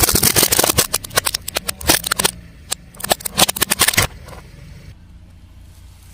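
Car tyre rolling over and crushing crunchy objects: a rapid run of crackles and snaps for about two seconds, a second run about three seconds in, then only a low steady background.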